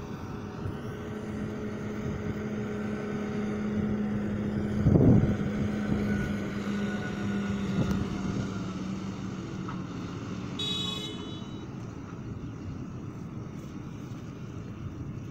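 John Deere tractor engine running steadily as the tractor drives past towing a loaded Bergmann forage wagon. The sound grows louder toward the middle, with a short loud burst about five seconds in, then fades as the tractor moves away.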